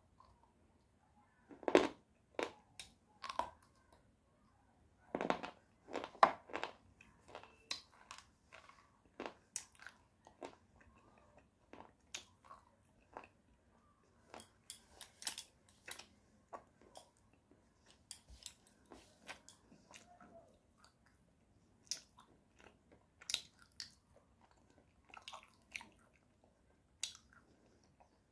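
Close-miked biting and slow chewing of a hard white clay bar. The sharpest, loudest crunches come in the first several seconds, followed by smaller, irregular crunches as the pieces are chewed.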